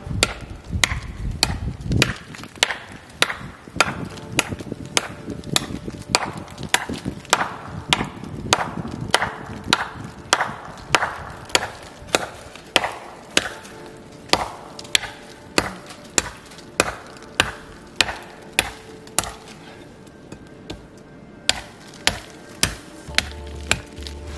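A large TOPS Steel Eagle 111A survival knife chopping into the base of a small standing sapling: a steady run of sharp whacks, about two a second, with a short pause about twenty seconds in.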